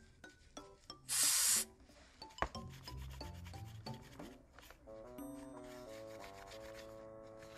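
A short, loud hiss from an aerosol cleaner spray can about a second in, with gloved hands rubbing and scrubbing in the combustion chamber of a Honda VTZ250 cylinder head. Background music with held notes comes in during the second half.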